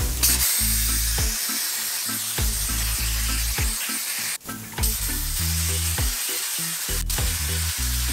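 Dry ice blaster set to 144 PSI firing through a gold nozzle onto greasy undercarriage metal, a steady hard hiss that cuts out for a moment about four and a half seconds in. Background music with a stepping bass line underneath.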